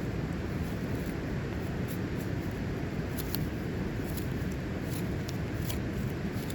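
Wood campfire crackling, with sparse sharp pops at irregular intervals over a steady low rush of background noise.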